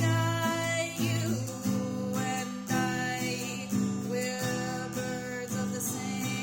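Acoustic guitar strummed in a steady rhythm while a singer holds long sung notes over it.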